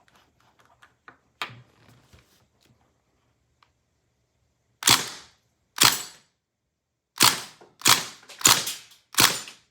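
Crosman Bushmaster MPW CO2 BB rifle firing six single shots, each a sharp pop, spaced under a second or so apart and starting about five seconds in. A faint click comes a second and a half in.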